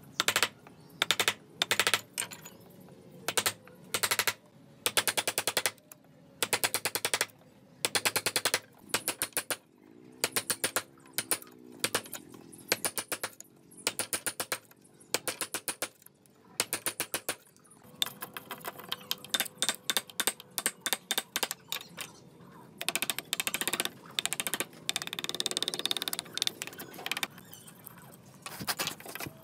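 Steel wood chisel being driven into a timber beam to chop out a mortise: short bursts of rapid, sharp taps, about one burst a second. In the last third the chopping turns into a longer, busier run of blows and scraping as chips are cleared.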